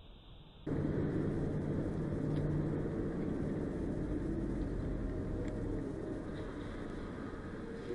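Steady road and engine noise inside a car cruising on a highway, picked up by a dashcam, with a low engine hum. It comes in abruptly under a second in, after a near-silent moment.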